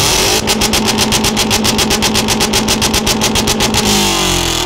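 Subaru Impreza's flat-four engine held at high revs through its exhaust, the note stuttering evenly at about eight pulses a second. Near the end the stutter stops and the revs fall away.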